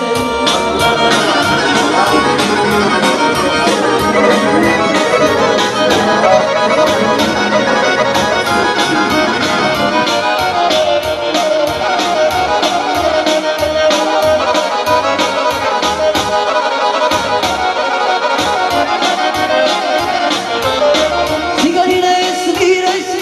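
Live Balkan Roma-style band music: an instrumental break with a fast accordion-sounding lead, played on a synthesizer keyboard, over a quick steady programmed beat.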